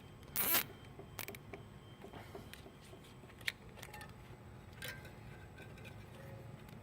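Nylon zip tie being pulled tight around a bicycle chain guard: a short rasping zip about half a second in, followed by scattered light clicks and handling of plastic parts.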